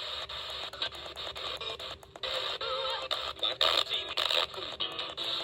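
FM radio receiver on a weak station: hissing static with crackles and dropouts, faint broken program audio coming through the small speaker.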